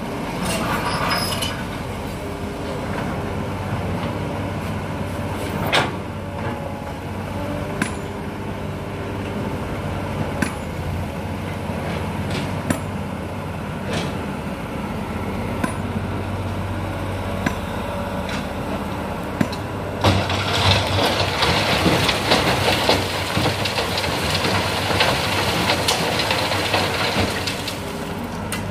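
Komatsu PC200 hydraulic excavator's diesel engine running steadily as it digs, with occasional sharp knocks of the bucket against rock. About twenty seconds in, a dense rattle of sand and stones runs for several seconds as a bucket load is dumped into the steel bed of a dump truck.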